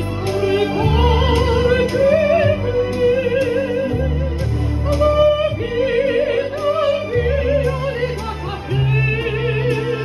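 A soprano singing in operatic style into a handheld microphone, her held notes wavering with a wide vibrato, over an accompaniment of sustained low bass notes.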